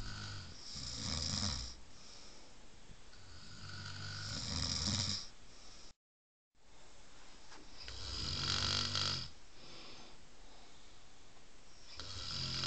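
Snoring: four loud snores, one every three to four seconds.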